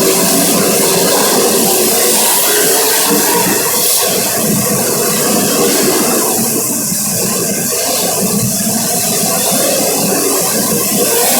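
Race vehicle engines running steadily under a continuous rushing noise, with a faint engine pitch drifting up and down.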